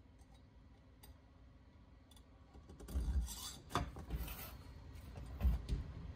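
Aluminium big-bore cylinder and bare Honda Dio AF18 crankcase handled together: rubbing, clicks and dull knocks of metal against metal as the cylinder is set onto the case, starting about three seconds in. The loudest knock comes near the end.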